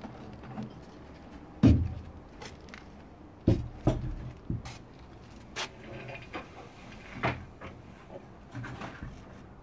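A series of irregular knocks and clunks, the loudest a little under two seconds in and a pair between three and a half and four seconds in.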